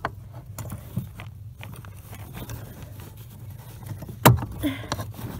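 Clutch master cylinder being worked by hand into its hole in the firewall: small scrapes and taps of the part against the mounting, with one sharp knock about four seconds in. A low steady hum runs underneath.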